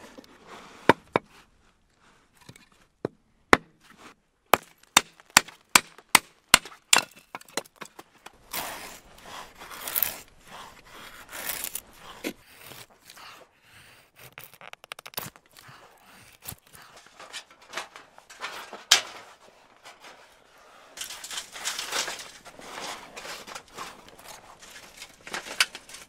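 A hatchet chopping wood in about ten sharp strikes, coming quicker toward the end. Then a knife blade shaving long curls off a stick in repeated scraping strokes, making a feather stick.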